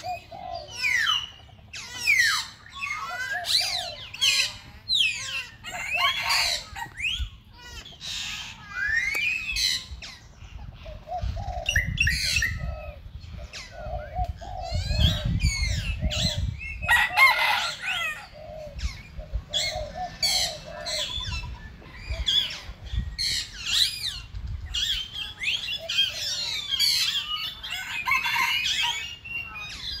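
A chorus of several birds chirping and whistling: many short calls with quick rising and falling notes, one after another and overlapping. A low rumble runs underneath, strongest around the middle.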